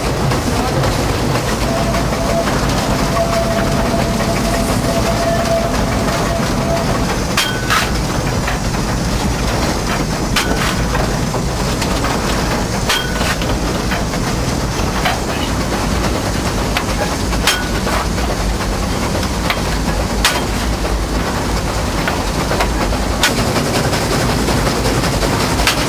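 Cab of a narrow-gauge steam locomotive on the move: a loud, steady rumble and hiss, with a sharp metallic click every few seconds.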